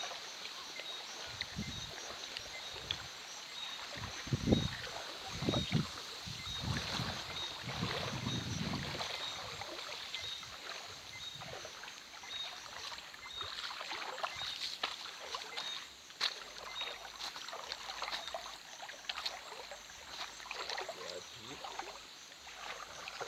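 Water sloshing and splashing in uneven bursts, loudest a few seconds in, with scattered small knocks. A faint high chirp repeats about once a second behind it.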